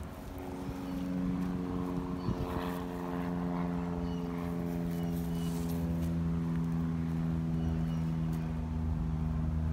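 An engine running steadily: one even, pitched drone that fades in during the first second and sinks slightly in pitch, with a single brief click about two seconds in.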